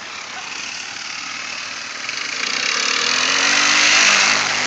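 ATV engine revving and getting louder as the four-wheeler drives through shallow muddy water near the microphone, its tyres throwing up spray. It is loudest about four seconds in.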